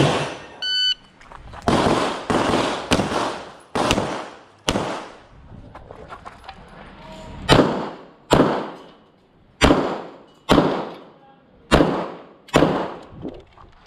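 Handgun shots in an IPSC Classic-division stage: an electronic shot-timer beep about a second in gives the start signal, then a string of sharp pistol shots, mostly in quick pairs, with a pause of about two seconds midway before the firing resumes.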